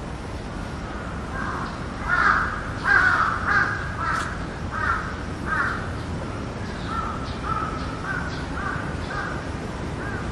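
A crow cawing in a series of short repeated caws, loudest from about two seconds in, then softer caws toward the end, over steady background noise.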